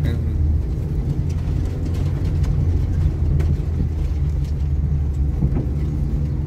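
Car engine and tyre noise heard from inside the cabin while driving over rough grassy ground: a steady low rumble with a few faint knocks.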